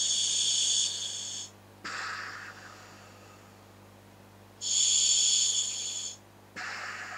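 Breathing through a scuba regulator attached to a hooded gas mask: two breath cycles, each a loud hiss of about a second and a half with a whistling edge as the demand valve opens on the inhale, followed after a short pause by a shorter, lower hiss of the exhale.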